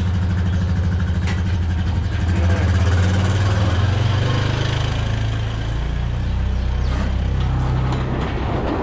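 Vehicle engine running steadily just after starting, its pitch rising a little about two and a half seconds in and holding there.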